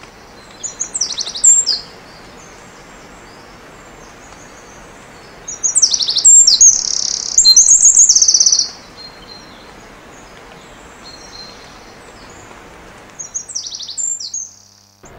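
Bird calls in three bursts of high chirps and quick sweeping notes, the middle burst longest and loudest, over a steady faint hiss.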